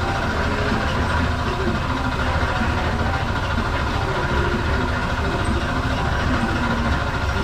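A steady low rumble that runs on without a break at an even level.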